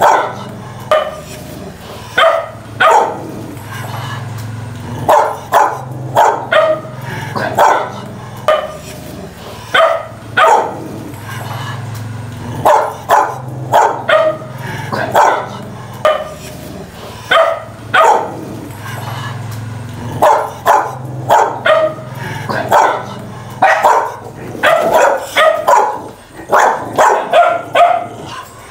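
Dogs barking repeatedly in loud, irregular volleys of short, sharp barks, a few a second at the busiest.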